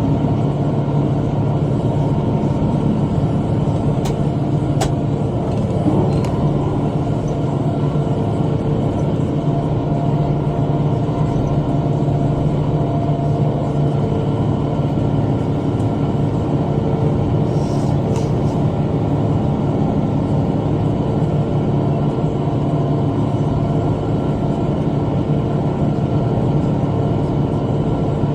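Tractor engine running steadily under load while pulling a rotary cutter (bush hog) through brush. A few sharp clicks stand out around four to six seconds in and again near eighteen seconds.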